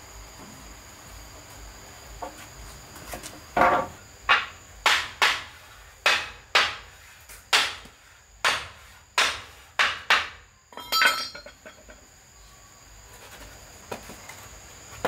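Hammer striking nails into wood, about eleven blows at an uneven pace, each ringing briefly, followed by a short clatter. Insects drone steadily in the background.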